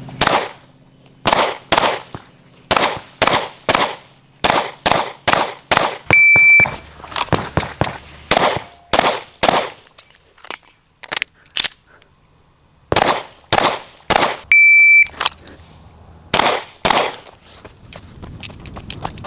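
Strings of rapid 9mm pistol shots from a Staccato P, several shots a second, fired in timed drills. A shot-timer start beep sounds twice, about six seconds in and again near fifteen seconds, each followed by a fresh string of shots.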